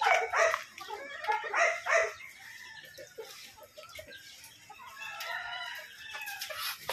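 Backyard chickens clucking, with a rooster crowing. The calls are loudest in the first two seconds, die down, and come back more faintly near the end.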